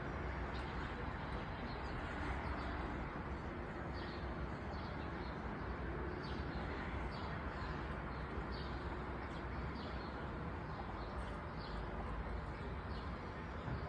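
Small birds chirping in short, repeated calls scattered throughout, over a steady low background rumble.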